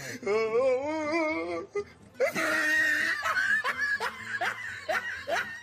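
People laughing: a long, wavering laugh, then after a short pause a run of quick, hearty laughs.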